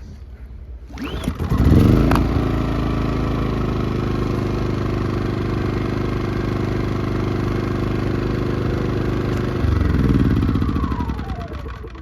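PowerSmart 2500W inverter generator's small engine starting up about a second in and then running steadily. Near the end it surges briefly and then dies away with a falling whine.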